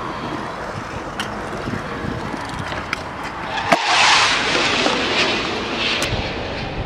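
Stunt scooter wheels rolling on a concrete skatepark ramp as the rider drops in, with a sharp clack nearly four seconds in followed by a louder rush of wheel noise lasting about a second and a half.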